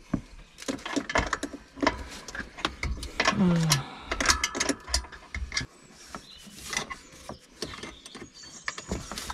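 Irregular metallic clicks and knocks of hand tools driving the mounting screws of a new seat into a tractor's cab floor. A short voice sound comes a little over three seconds in.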